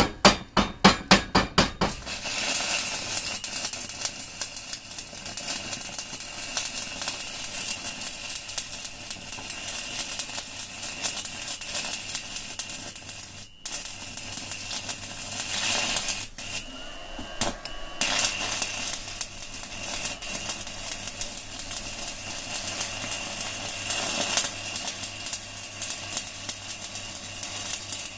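Stick (MMA) welding arc from a 4 mm UONI basic-coated electrode at about 160 A on a small inverter welder. It opens with a quick run of taps, about four a second, as the arc is struck. The arc then crackles and sizzles steadily, breaking off for a moment about halfway through.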